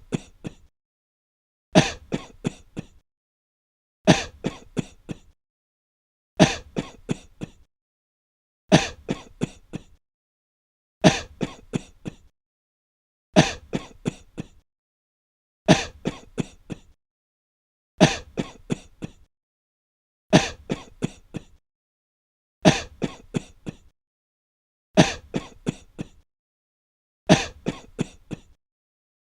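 A person coughing in breathless fits: each fit is one hard cough followed by three or four weaker ones, and the same fit repeats about every two and a quarter seconds with dead silence between.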